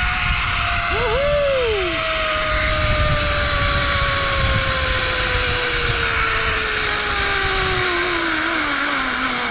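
Zipline trolley pulleys whining along the steel cable: one steady tone that falls slowly in pitch as the rider slows. Under it runs a low rumble of wind.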